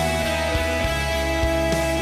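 Background music: a rock song with guitar over a steady beat, one long note held throughout, in a gap between sung lines.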